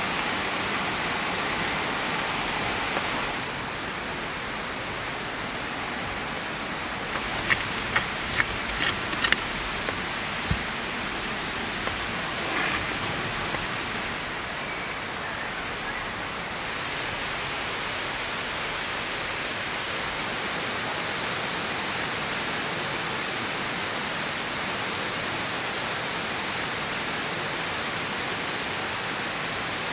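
Steady rushing ambient noise, like running water, with a short run of sharp clicks about seven to nine seconds in and one more click a second or so later.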